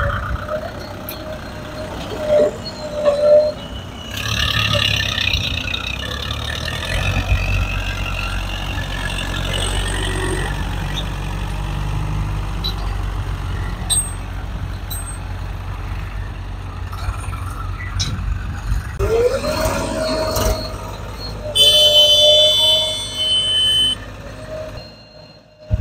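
Tractor diesel engine running with a steady low rumble, heavier from about a quarter of the way in. Near the end there is a rising whine, then a loud high-pitched tone lasting about two seconds.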